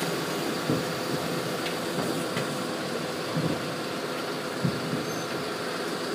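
A large vehicle running steadily, with about five short knocks scattered through.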